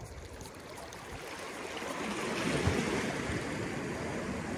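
Sea water washing and lapping in a strong current, with wind noise on the microphone; the water sound grows louder about two seconds in.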